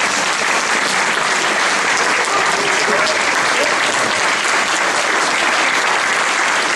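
Audience applauding steadily, a dense patter of many hands clapping at once, with a few voices in the crowd.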